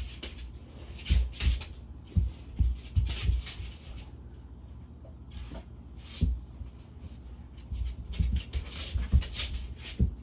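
A dog making short, irregular noises in several clusters, with soft thumps among them.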